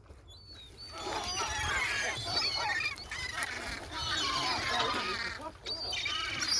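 A flock of gulls calling over one another, a dense chorus of overlapping squawks and cries that starts about a second in, with a brief lull near the end.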